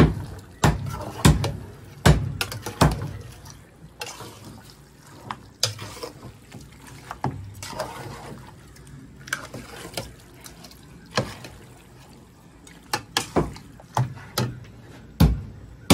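Long metal spoon stirring chunks of seasoned meat in an aluminium pot: wet squelching with irregular clinks and scrapes of the spoon against the pot.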